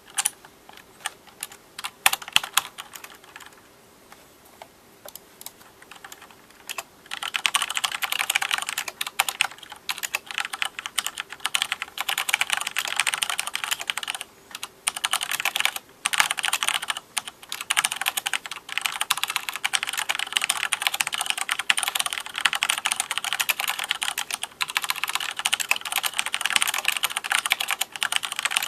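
Mechanical keyboard with Cherry MX Black linear switches being typed on: a few separate keystrokes for the first several seconds, then fast, continuous typing broken by a few short pauses.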